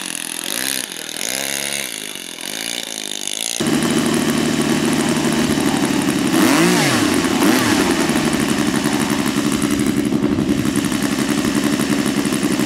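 A radio-controlled model airplane's small .80-size engine catches about three and a half seconds in and then idles steadily.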